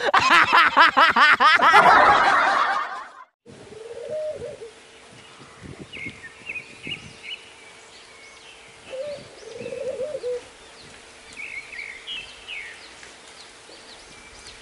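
A loud electronic logo sting of wavering tones for about the first three seconds, then a caged white dove cooing twice, the second coo longer, with small birds chirping in the background.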